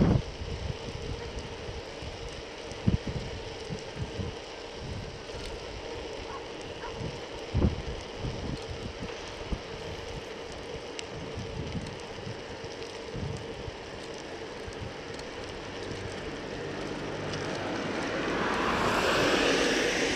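Wind buffeting a handlebar-mounted camera's microphone on a moving bicycle, with steady road noise and a few low thumps. Near the end a small car overtakes, its passing noise swelling to the loudest point and then easing.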